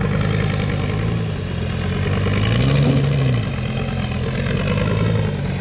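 Rock crawler's engine running under load on a climb, revving up and back down about halfway through.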